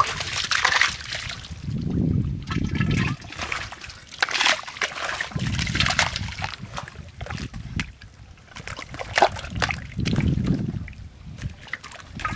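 Thick muddy water being scooped by hand with a bowl from a hole in the mud and poured out, sloshing, splashing and dribbling, several times over.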